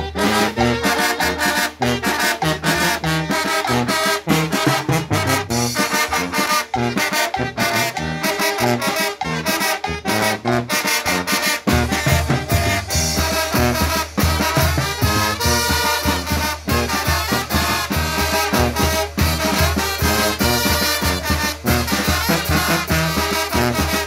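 A Guerrero village brass band playing a lively dance tune: tuba, trombones, trumpets and saxophone over a steady beat on drums and cymbal. About halfway through, the bass and percussion grow fuller and louder.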